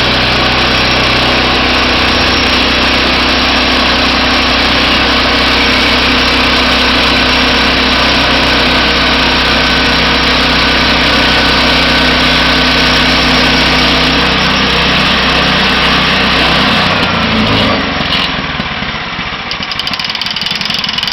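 Engine of a Crosswood Model #28 portable band sawmill running steadily at speed, then throttled down about 17 seconds in, dropping to a quieter idle.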